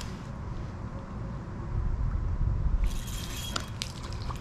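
A small hooked panfish splashing at the surface and water dripping as it is lifted out, from about three seconds in, with a few sharp clicks. Before that, a low rumble of handling.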